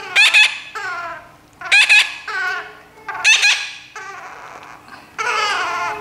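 Baby parrots giving harsh, raspy squawks: four loud calls about a second and a half apart, with quieter calls between them.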